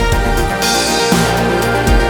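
Electronic music with heavy bass hits and sustained synth tones.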